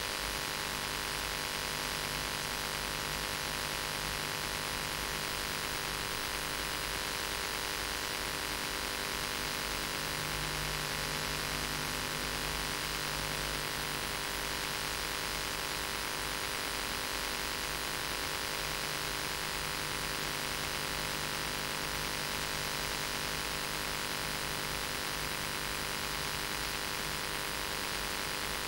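Steady electrical hum and hiss with no other sound: mains hum with many steady tones over an even hiss, the noise floor of an old video recording.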